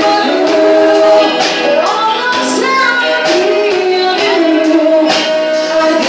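Live band performance: a woman sings the lead into a handheld microphone over electric guitars and a regular percussion beat. The sound is thin, with almost no bass.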